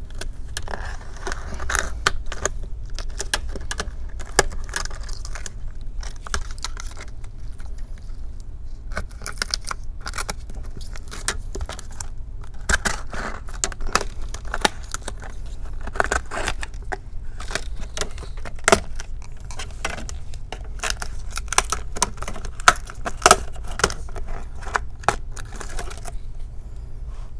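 Plastic front bezel of a laptop screen being pried and peeled away from the LCD: irregular clicks, snaps and scraping of plastic and double-sided adhesive tape, over a steady low hum.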